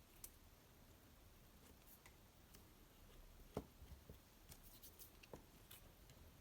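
Near silence, with a few faint, brief taps and rustles from small craft items being handled as a loosened layer of a cardboard piece is pressed back down with glue.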